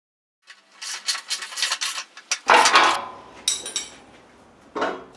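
Steel snow plow hardware being handled: the coil tension springs, hooks and a wrench on the steel blade clatter and rattle, with a loud ringing clank about two and a half seconds in and two more clanks near the end.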